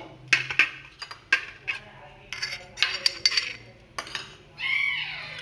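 Steel kitchenware clinking and clattering as the metal ribbon pakoda press and its plates are handled: a run of sharp clinks, then a longer metal scrape near the end.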